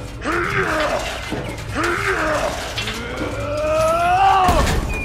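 Cow mooing, three moos, the last one long and rising in pitch.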